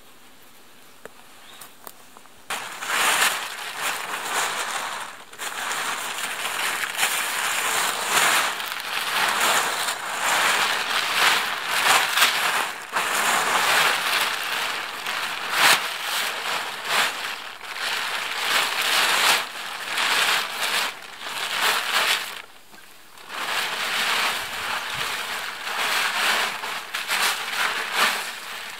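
Blue plastic tarp crinkling and rustling loudly as it is unfolded and pulled over a log frame, starting a couple of seconds in and going on in rough bursts with a few brief pauses.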